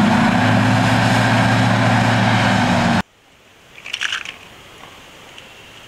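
Loud, harsh engine-like noise with a steady low hum, cutting off abruptly about three seconds in; a few faint clicks follow.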